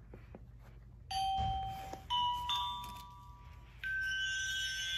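Electronic chime from a toy advent calendar's built-in sound module, set off by its button. It plays four held beep notes, each higher than the last, and the final note rings on steadily.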